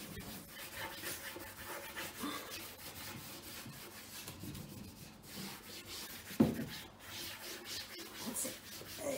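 A cloth rubbing back and forth over a smooth white cabinet top as it is wiped down. One short, louder knock about two-thirds of the way through.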